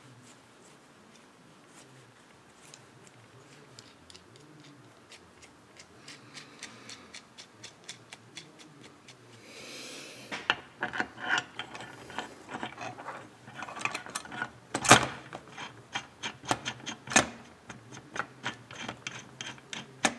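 Small metal parts and hand tools clicking and rattling as a chainsaw crankcase and crankshaft are handled and fitted together by hand. Faint at first and much busier from about halfway, with a short hiss just before the clicking picks up and a sharp knock about three quarters through.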